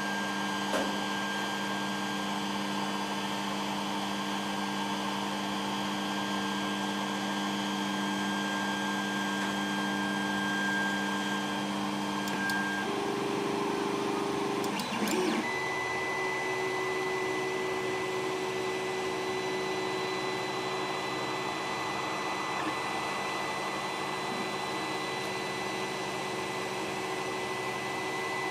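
Creality Ender 3 3D printer's stepper motors whining in steady tones as the machine moves its axes at the start of a print, with the pitch changing twice a little over halfway through. A steady fan hiss runs underneath.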